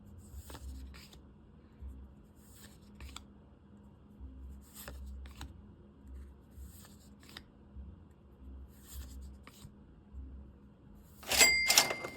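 One Piece trading cards being slid and flipped off a stack one at a time, soft swishing strokes coming in pairs about every two seconds. Near the end there is a much louder crinkling scrape with a brief squeak in it.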